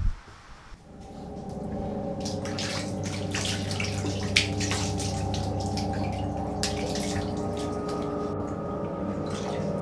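A steady low hum, with irregular sharp clicks over it starting about two seconds in.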